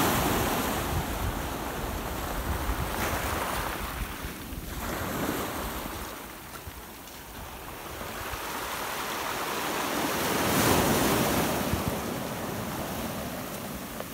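Small waves breaking and washing up over a pebble beach, rising and falling in swells and loudest about eleven seconds in, with wind rumbling on the microphone.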